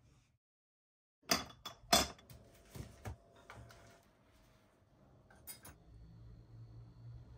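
Porcelain dishes clinking and knocking as they are set down on a tray: two sharp knocks about a second and a half in, then several lighter clinks, and a couple more clicks later on.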